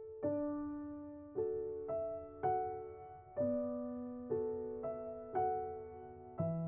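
Background music: slow, gentle solo piano, with a new note or chord struck roughly every second and left to ring and fade.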